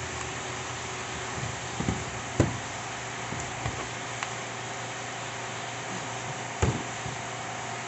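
A few short knocks and clicks of metal parts and tools being handled while a demolition hammer is taken apart, over a steady faint hiss and hum. The loudest knock comes about two and a half seconds in, and another sharp one near the end.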